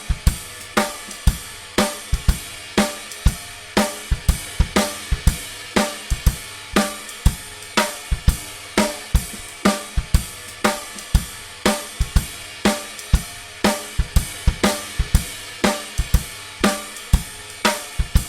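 Instrumental song outro carried by a drum kit playing a steady beat, with sharp regular hits of snare, kick and cymbals about two to three times a second over the band.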